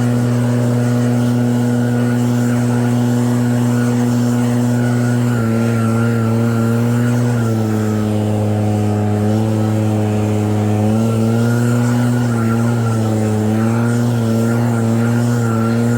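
EB7660RED snow blower engine running steadily, its note dipping in pitch and recovering a few times.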